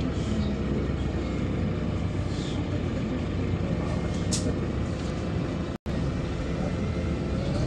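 Steady engine drone and road noise inside a LiAZ-5292.67 city bus running on compressed natural gas as it drives. A short hiss comes about four seconds in, and the sound cuts out for an instant a little before six seconds.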